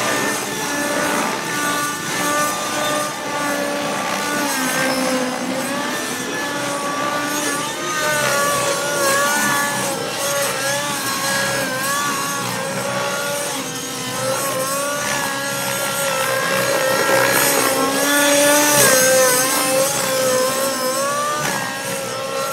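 Synergy N5C nitro RC helicopter in aerobatic flight: its Nova Rossi REX 57 two-stroke glow engine and rotor blades run at a high, steady pitch that wavers and dips as the rotor loads and unloads through the manoeuvres. It gets louder, with more rushing hiss, about two-thirds of the way through.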